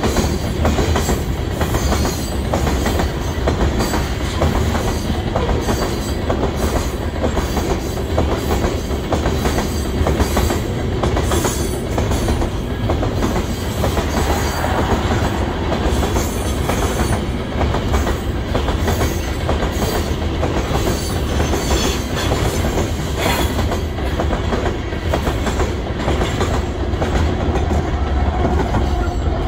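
Covered hopper cars of a freight train rolling past close by, with a steady rumble and an irregular clatter of wheels over rail joints. Near the end a BNSF diesel locomotive comes past and its engine hum joins in.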